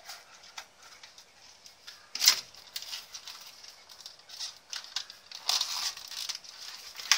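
Clear plastic packaging being opened and handled: crinkling and rustling with small taps and clicks, the loudest a sharp click a little over two seconds in, and a longer rustle about five and a half seconds in as the phone case is lifted from its plastic tray.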